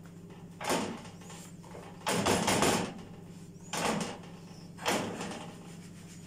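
Handling noises from a non-stick pan of thin Syrian flatbread on a gas-stove grate: about five short scraping swishes as the bread is pressed down with a silicone spatula and the pan is shifted and lifted on the grate. The longest and loudest swish comes about two seconds in. A low steady hum runs underneath.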